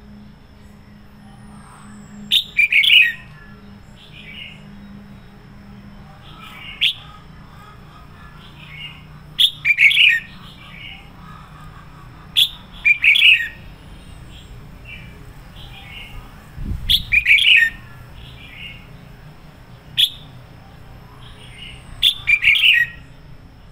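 Red-whiskered bulbul singing loud short phrases of its bright, warbling song every two to four seconds, with softer phrases in between. This is the lively, full-throated "sổ bọng" song of a fired-up male.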